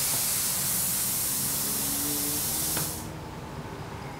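Compressed air hissing from the drill press's pneumatic feed cylinder and valve as the motor carriage travels down its guide rods; the hiss stops about three seconds in.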